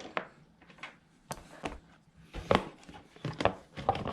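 Irregular clicks, taps and knocks of a dirt bike's plastic side panel being handled and worked free of its mounts.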